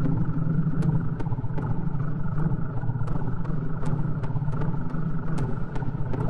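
A steady, engine-like low rumble, with sharp clicks scattered unevenly about twice a second.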